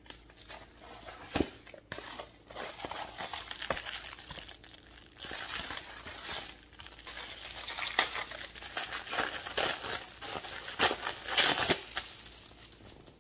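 A plastic mailer bag is opened and clear plastic bags are pulled out of it, crinkling and rustling, with a few sharper crackles near the end.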